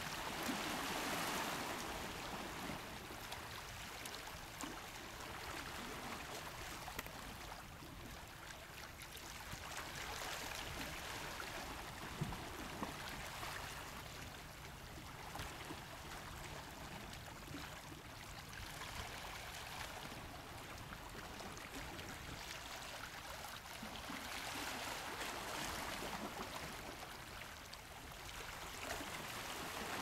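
Small sea waves lapping and washing against rocks at the water's edge: a steady wash of water that swells and fades every few seconds.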